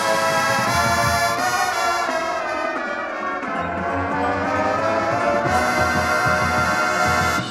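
Marching band brass playing loud held chords, with a steady run of low drum hits underneath from about halfway through; the full ensemble cuts off sharply at the end.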